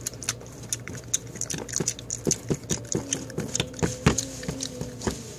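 Irregular light clicks and taps of small plastic toys handled on a tile floor, several a second. A faint steady hum comes in about three seconds in.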